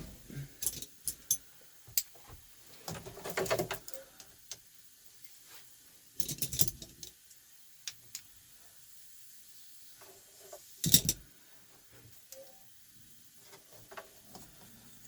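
Hand work on metal fittings and tools: scattered clicks, light rattles and short clattering bursts, the loudest clatter about eleven seconds in, as capped gauge lines and fittings are worked loose behind a truck dashboard.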